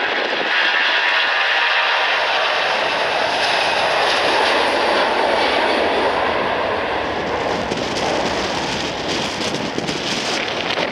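Airbus A340's four jet engines at takeoff thrust as the airliner accelerates down the runway past the listener: a loud, steady rushing jet noise that eases slightly near the end.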